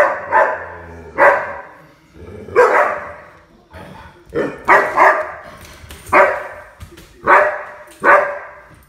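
Dog barking in play, about ten short, sharp barks at uneven intervals.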